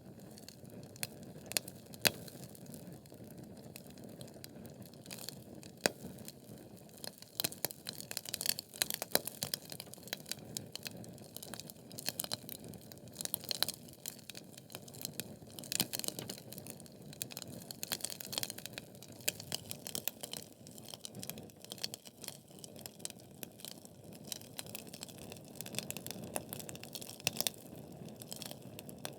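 Wood fire of burning logs crackling: irregular sharp pops and snaps over a steady low hiss, with a few louder pops.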